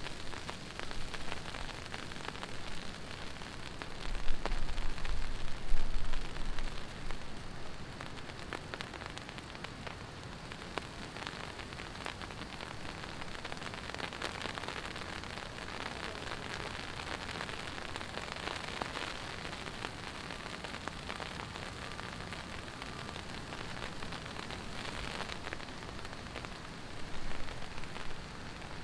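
Heavy rain falling and pattering on surfaces, a dense hiss full of fine drop ticks. About four to six seconds in, a brief low rumble rises over it.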